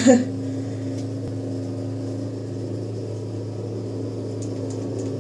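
Steady low mechanical hum at a constant pitch, like a small motor running.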